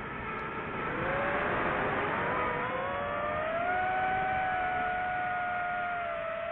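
FPV drone's brushless motors and propellers whining; the pitch climbs over the first few seconds as the throttle comes up, then holds and sags slightly near the end.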